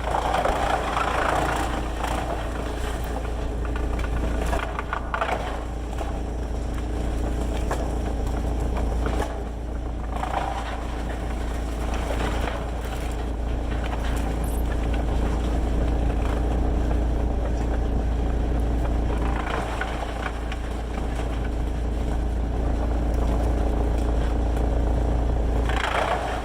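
Heavy sawmill machinery running steadily, with a constant low engine-like drone. Louder passages with a scraping or grinding edge come and go several times.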